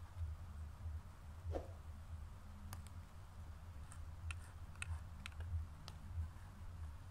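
Faint, sharp clicks and taps of plastic spice jars and a shaker being handled while seasoning food, about eight of them in the second half. A low rumble runs underneath.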